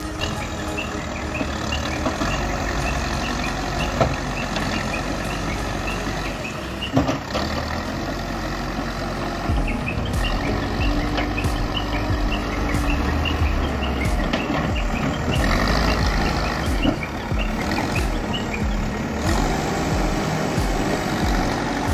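Manitou backhoe loader's diesel engine running steadily under load as the backhoe arm digs, with a couple of sharp knocks around 4 and 7 seconds in. A short high chirp repeats over it for much of the time.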